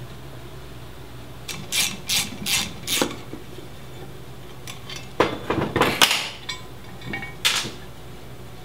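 Hand tool work on a Dana 44 differential cover: a run of short rasping strokes as the cover bolts are worked loose, then scraping and clinking of metal as the cover is worked off the axle housing.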